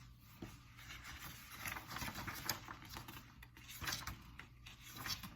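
Paper rustling and crackling in quick, irregular bursts as pages are leafed through by hand.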